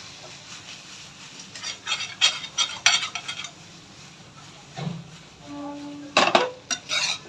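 Metal spatula scraping and knocking against a kadhai as chicken chilli is stirred and tossed, in several clattering bursts with pauses between them.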